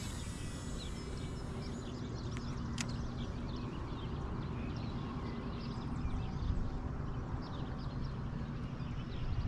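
Outdoor ambience: many faint, short high chirps over a low steady rumble, with a single sharp click about three seconds in.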